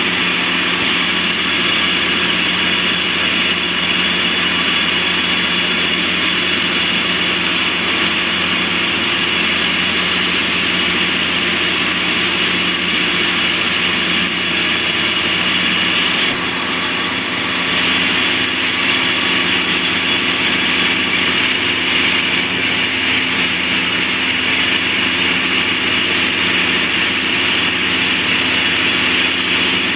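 Underground downhole drill rig running while it drills into rock, a loud, steady machine noise heard from inside the operator's cab. The high hiss briefly drops away a little past halfway.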